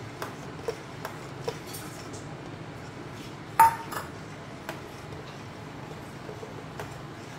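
Metal spoon stirring custard in a stainless steel saucepan, tapping and scraping the pan with light clinks. There is one loud ringing clink of the spoon on the pan a little past the middle.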